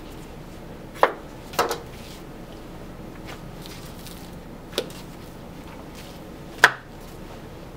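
Sharp knocks and clacks on a wooden cutting board as beef chuck roasts are handled and tied with butcher's twine: one about a second in, a quick double just after, a lighter one past the middle, and the loudest near the end.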